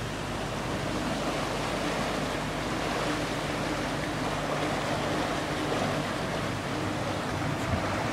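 Steady rushing outdoor dockside ambience, with a faint low steady hum underneath.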